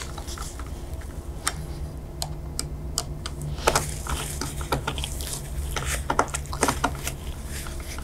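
T20 Torx screwdriver tightening a CPU heatsink screw, giving a run of small irregular clicks and ticks, with a faint steady low hum underneath.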